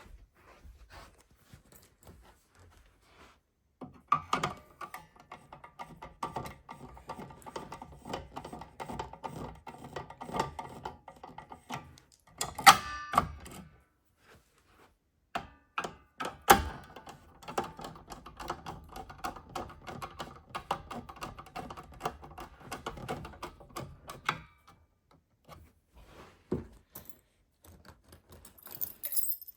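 Irregular clicking and rattling, with two sharp, louder knocks about twelve and sixteen seconds in. It starts about four seconds in and dies away about twenty-four seconds in.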